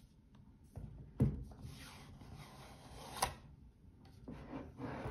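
A cardboard sleeve slides off a watch presentation box with a long rubbing, papery scrape. There is a knock about a second in and a sharp tap near the three-second mark, then another shorter rub of cardboard near the end.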